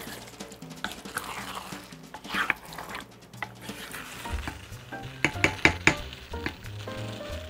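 Wooden spoon stirring a thick baked-bean stew in an enamelled cast-iron cocotte, with soft scraping and wet stirring. A quick run of sharp knocks of the spoon against the pot comes about five to six seconds in, over background music.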